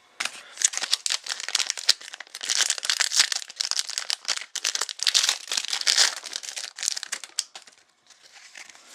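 Trading-card pack wrapper being torn open and crinkled in the hands, a dense crackling that dies down about a second and a half before the end.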